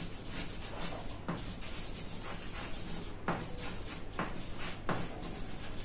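Chalk writing on a blackboard: soft scratching strokes with a few sharper taps.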